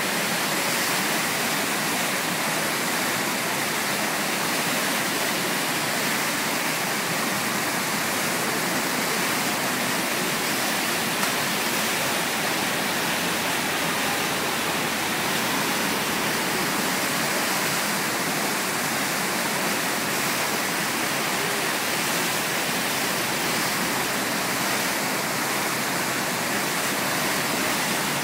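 Whitewater of a river standing wave rushing steadily and evenly, with no change in level.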